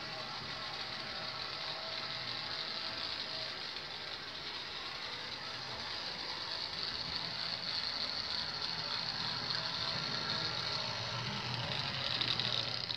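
Life-Like HO scale 0-4-0 saddle tank switcher's small DC motor and gears whirring steadily as it pulls a string of freight cars along the track, getting gradually louder as the train comes closer.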